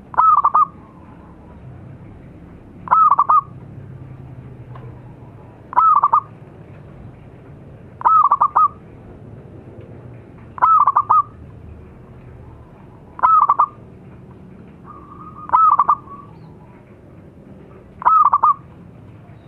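Zebra dove (perkutut) giving its loud cooing song: a short call of several quick notes, repeated evenly about every two and a half seconds, eight times.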